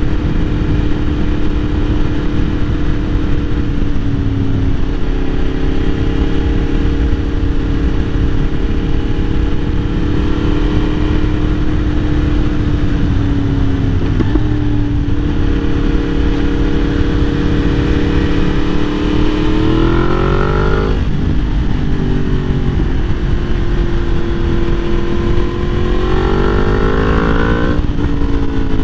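Yamaha MT-10's crossplane inline-four through an Akrapovic exhaust, running at steady revs while riding with small throttle changes. In the last third it revs up and shifts up twice, the pitch dropping suddenly at each shift.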